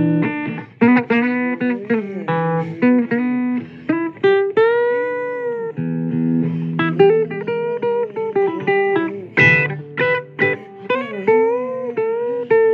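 Blues guitar instrumental break: plucked single notes and chords, with several notes bent or slid in pitch.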